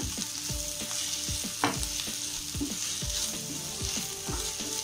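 Mixed vegetables sizzling in oil in a nonstick kadai while a spatula stirs them. The spatula scrapes and knocks irregularly against the pan, with one louder knock about a second and a half in.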